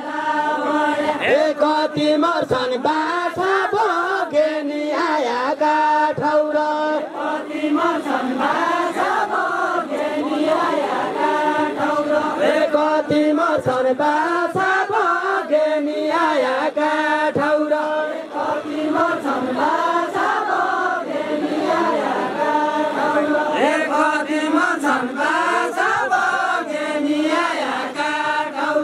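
Men singing a Nepali deuda folk song together in a chanting chorus, the lead voice sung into a microphone.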